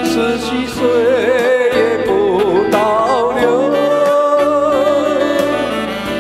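Man singing through a microphone over amplified backing music. His voice wavers with vibrato, then holds one long note through the second half.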